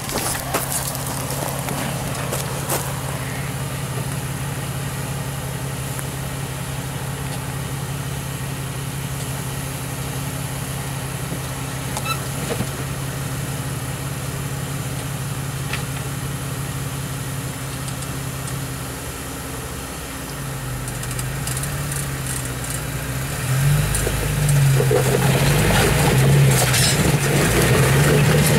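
Modified Jeep Wrangler TJ rock crawler's engine idling steadily, then from about two-thirds through the revs rise and fall repeatedly as the throttle is worked, louder near the end.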